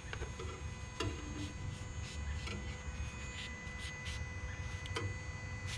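Faint rustling and a few light clicks of an engine oil dipstick being wiped clean with a rag, over a low steady hum.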